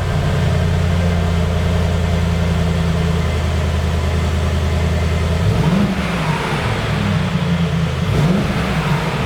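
Mercedes-AMG G63's twin-turbo V8 running at a steady speed, then revved in several quick blips in the second half, the pitch rising and falling each time.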